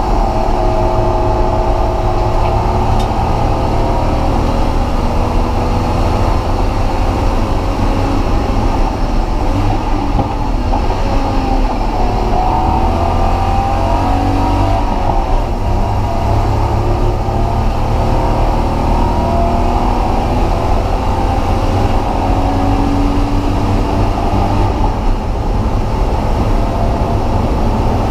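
Car engine and road noise at speed, a steady low rumble with the engine note rising and falling.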